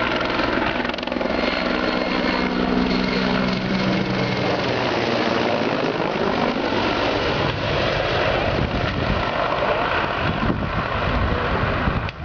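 Mi-24 attack helicopter flying low past and overhead: its twin turboshaft engines whine and its main rotor beats loudly. The pitch bends as it passes close about midway, and the rotor beat grows heavier afterwards.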